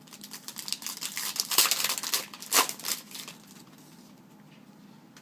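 Crinkling and tearing of a plastic trading-card pack wrapper as cards are handled, a rapid run of crackles for about three seconds that then stops.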